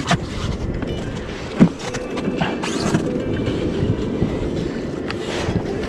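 Water slapping and sloshing against an inflatable boat's hull on open sea, a steady low rumble with a few sharp knocks.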